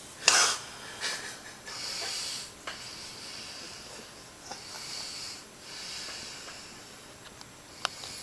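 A sleeping man breathing noisily: a loud snort about a third of a second in, then several long hissing breaths. A sharp click near the end.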